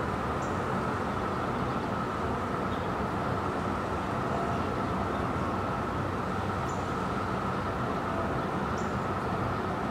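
Steady, distant traffic roar from the surrounding urban area at dawn, with a bird chirping briefly a few times.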